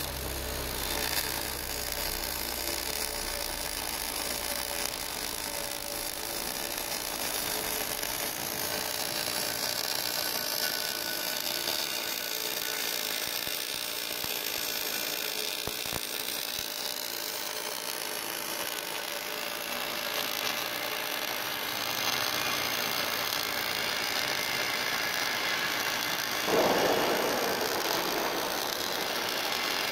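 Automatic longitudinal butt-seam welder running a wire-fed (MIG) arc along a steel-plate seam: a steady frying hiss of the welding arc, with a brief louder surge near the end.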